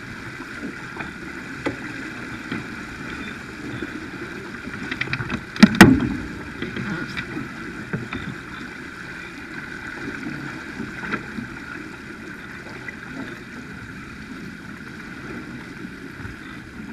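Water rushing past the hull of a Farr 280 racing sailboat under sail, a steady wash. A cluster of sharp knocks and clicks about five to six seconds in is the loudest moment.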